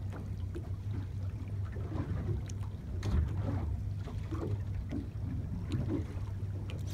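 Water lapping and splashing against the hull of a small fishing boat at sea, over a steady low rumble, with scattered short splashes.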